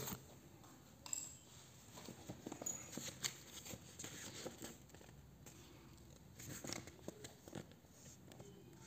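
A sheet of drawing paper rustling faintly in the hands as it is lifted and held up, with scattered small handling clicks.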